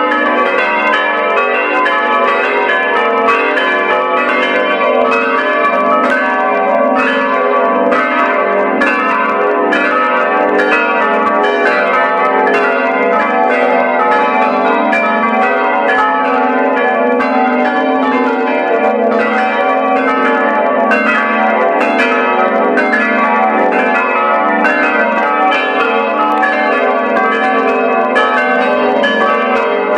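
Five church bells rung together in full peal (plenum), their strokes overlapping in a dense, continuous ringing that holds steady throughout.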